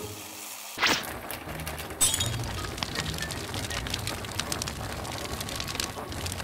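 A large pot of spicy ramen broth boiling hard, bubbling and crackling, while chopsticks stir the noodles and seasoning powder through it. The boiling sound comes in suddenly about a second in, over soft background music.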